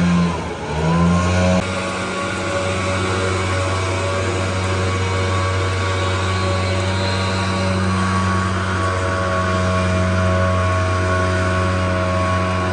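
A steady engine drone whose pitch dips and comes back up about a second in, then holds level, over the even hiss of light rain.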